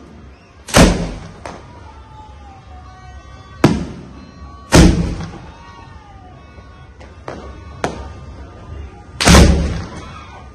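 Tabletop multi-shot firework cakes firing their shots, with sharp bangs at uneven intervals. Four loud ones come about 1, 4, 5 and 9 seconds in, with smaller cracks between them.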